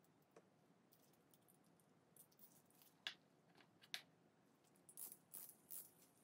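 Faint clicks and taps of a small brass clock movement being handled in gloved hands, with two sharper clicks about three and four seconds in and a few more near the end.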